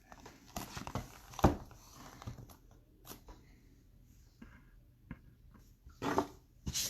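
Card boxes and their packaging being handled by hand: scattered knocks, taps and rustles, the sharpest knock about a second and a half in.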